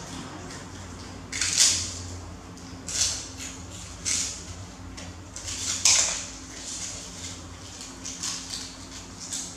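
Crisp fried cakes crackling and crunching as baby monkeys break off and nibble pieces, in short sharp bursts a second or two apart, over a low steady hum.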